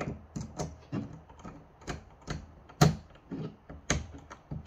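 Small screwdriver driving a screw into the hop-up unit of a Tokyo Marui Mk23 airsoft pistol: a run of light, irregular clicks and taps, about three a second, with a sharper click near three seconds in and another near four.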